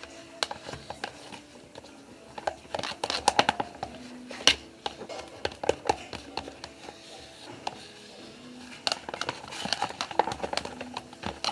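A thick homemade slime mix of lotion, toothpaste and cassava flour being stirred in a container, giving irregular clusters of clicks and scrapes against the sides, thickest about three to five seconds in and again near the end.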